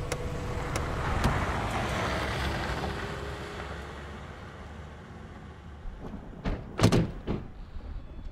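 A passing vehicle's rush swells and fades over the first few seconds, then the doors of a SEAT Altea XL shut with a few sharp thumps about two-thirds of the way through.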